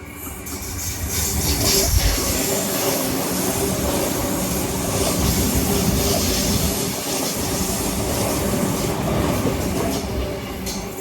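A Sydney Trains Tangara electric multiple unit passing along the platform. Wheels clatter on the rails, building over the first two seconds, holding loud, then dying away near the end.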